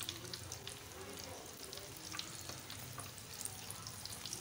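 Gram-flour-battered pakoras deep-frying in ghee in a karahi: a steady crackling sizzle full of small pops.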